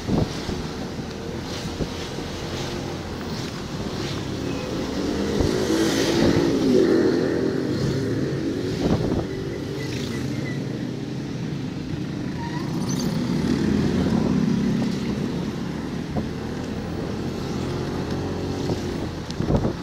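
Motorcycle engine running while riding along, with wind buffeting the microphone. The engine gets louder about six to seven seconds in and again around fourteen seconds.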